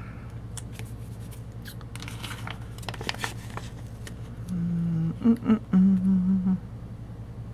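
Light rustling and clicks of a paper sticker sheet being handled, then a woman humming three short held notes about halfway through.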